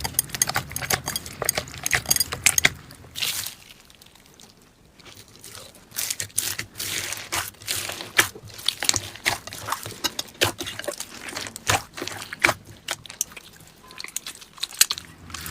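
Slime being squeezed and poked by hand, giving a dense run of irregular wet clicks and pops. It goes quieter for a couple of seconds about four seconds in.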